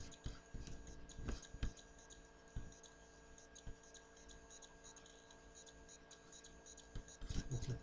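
Faint steady electrical hum with a few scattered soft clicks and a quick cluster of them near the end: computer mouse clicks.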